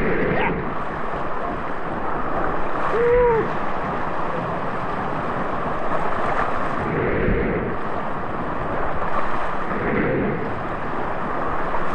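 Rushing, splashing water around an inner tube carried down a water-park rapids channel, with water and wind noise hitting the microphone. A short tone that rises and falls sounds briefly about three seconds in.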